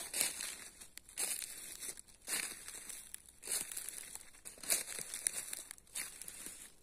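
Footsteps crunching through dry fallen leaves and forest litter, about one step a second.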